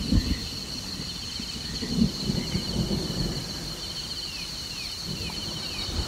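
Layered tropical rainforest ambience: a steady high insect drone, with a run of short falling chirps in the second half, over low rumbles of thunder that swell at the start and again about two seconds in.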